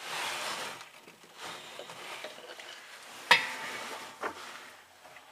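Metal hand tools (pliers and a screwdriver) being handled, with a sharp metallic clank that rings briefly a little over three seconds in and a softer clink about a second later, amid small ticks. Rustling at the start.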